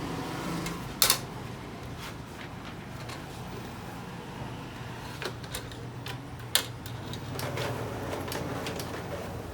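Epson L3110 inkjet printer's mechanism running during a test print: a steady motor whir with scattered ticks and two sharp clicks, one about a second in and a louder-looking one past six seconds.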